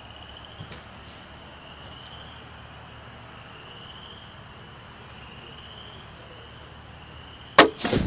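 A thin, high, steady insect chirring that slowly swells and fades. Near the end comes a sudden loud bang, followed at once by a quick cluster of knocks and rustles.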